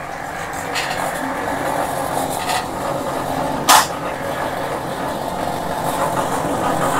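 A steady engine-like rumble that slowly grows louder. A sharp knock stands out about halfway through, and two fainter clicks come earlier.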